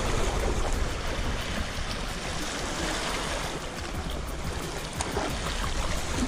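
Sea water washing and splashing against the boulders of a rock breakwater, a steady rushing noise.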